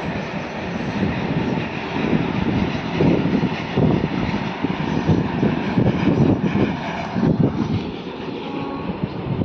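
Wind buffeting an outdoor microphone: a steady rumble with irregular gusts that swell and fade every second or so.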